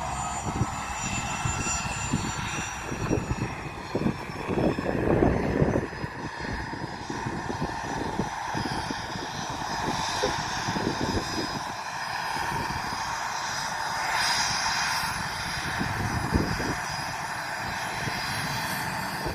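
Airplane engines running at the airport: a steady whine made of several high tones, slightly falling in pitch at the start, over a constant rush, with irregular low rumbling gusts.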